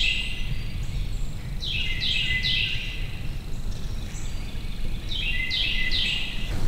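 A songbird singing two short phrases a few seconds apart, each of three down-slurred whistles, over a steady low rumble.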